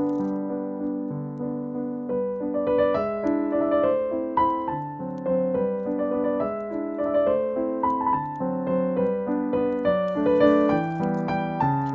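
Background piano music: a gentle melody over chords, notes struck one after another with a steady, unhurried pulse.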